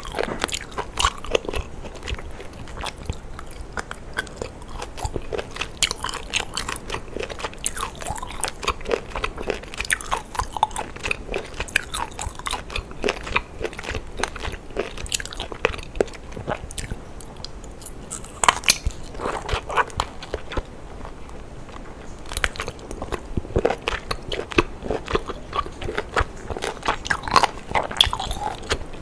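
Close-miked mouth sounds of someone biting and chewing a large cooked octopus tentacle: a steady run of irregular short clicks and smacks, a few louder ones a little past the middle.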